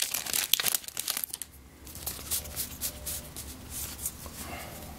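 A Magic: The Gathering booster pack's foil wrapper crinkling and tearing open, a dense crackle for about the first second and a half. Then a softer rustle of cards being handled.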